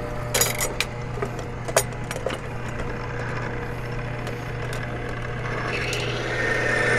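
Timken extreme-pressure lubricant tester running with a steady motor hum, a ball bearing pressed against its spinning race coated in lithium grease, with a few clicks from the load lever early on. As load is added through the lever, a scraping, grinding noise builds over the second half: the grease film failing under pressure, with the machine close to stalling at about 1 pound on the scale.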